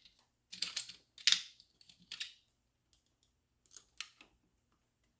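Short clicks and clatters of pump parts and tools being handled while a hydraulic treadle pump is put back together, in four small bunches, the loudest about a second in.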